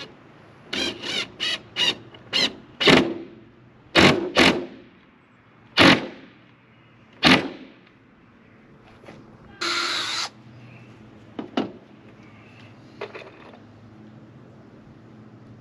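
Cordless drill driving screws into a wooden 2x2 brace in a series of short trigger bursts, the motor winding down after each, with a slightly longer run about ten seconds in; only a few light clicks follow.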